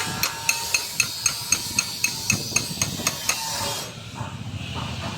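Metal struck with a hammer in quick, even blows, about four a second, each with a short metallic ring; the blows stop about three and a half seconds in.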